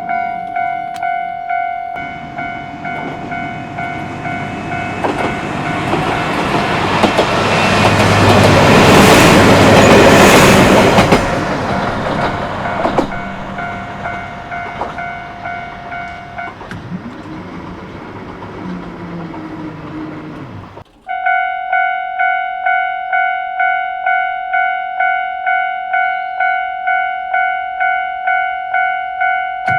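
Japanese level-crossing warning bell ringing in a steady, rapid pulsing 'kan-kan' while a diesel railcar passes over the crossing, the train noise loudest about a third of the way in. The bell stops a little past halfway, and after an abrupt cut near three-quarters the bell rings again.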